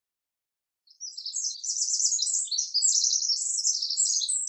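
Small birds chirping and twittering in quick high trills, starting about a second in.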